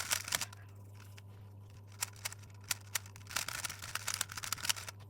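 Plastic clicks and short scrapes of a 3x3 speed cube, a GAN 356 M, being turned by hand in quick irregular bursts.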